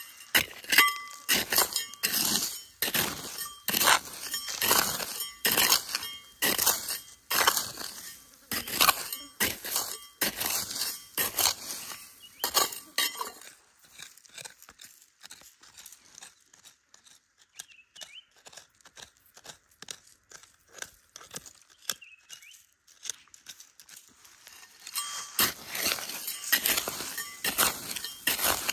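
Pointed steel trowel digging and scraping into dry, gravelly soil in quick repeated strokes, about two a second, with small stones clinking. Around the middle the strokes stop, leaving only faint scratching and clicks as the gravel is picked over by hand. The digging strokes start again near the end.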